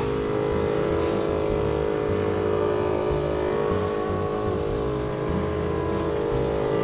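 Motorized backpack sprayer running with a steady hum while its wand sprays a mist of pesticide over chili plants.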